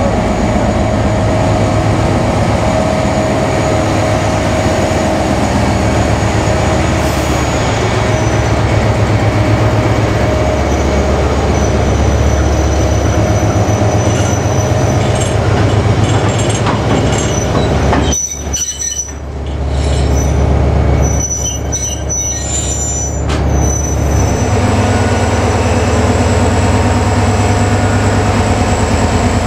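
NIR 111 Class GM diesel locomotive hauling a train of ballast hopper wagons past: the deep throb of its diesel engine over the rumble and rattle of the wagons' wheels on the rails. A steady whine sounds through the first several seconds. The sound drops away briefly about two-thirds through, then the locomotive and hoppers run on.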